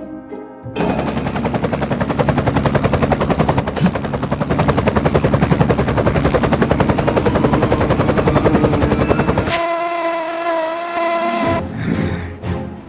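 Loud, rapidly pulsing whirring buzz of a fly's beating wings, an animation sound effect with a helicopter-like throb. It stops about ten seconds in and gives way to sustained tones.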